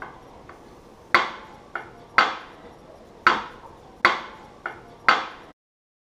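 An egg tapped against the rim of a glass bowl: five sharp knocks about a second apart, each ringing briefly, with lighter taps between them.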